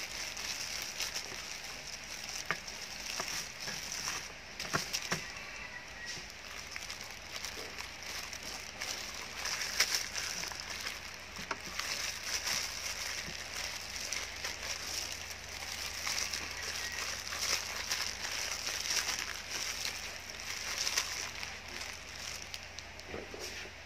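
Plastic food-prep glove crinkling and crackling as the hand works crushed lemongrass stalks into a raw chicken's cavity, with scattered small clicks over a steady high-pitched hiss.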